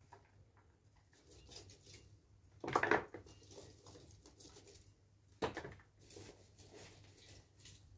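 Hands working chopped vegetables and a plastic jug while packing pickles: soft rustling and light clicks, with two short, louder clatters about two and a half seconds in and again about three seconds later.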